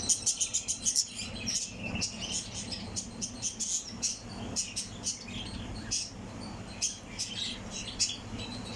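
Small cage birds and their chicks chirping: a quick run of high chirps at first, then scattered chirps, over a low steady hum.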